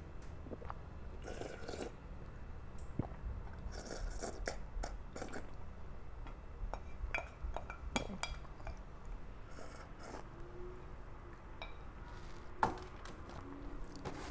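Wooden spoon scraping and tapping inside a clear food container as the last of the soup is scooped out and eaten, with scattered clicks and scrapes. There is a sharper knock near the end.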